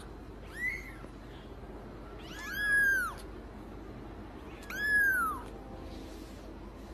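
A cat meowing three times in high-pitched calls that rise and fall: a short meow about half a second in, then two longer meows at about two and a half and five seconds.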